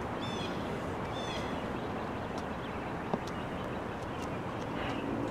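Steady outdoor background noise with a bird calling twice in the first second and a half, each call a short, quickly repeated phrase, then a few faint ticks.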